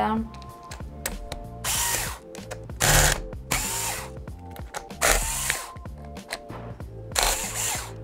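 Cordless electric screwdriver whirring in about five short bursts, backing out the small screws that hold a Chromebook motherboard in place.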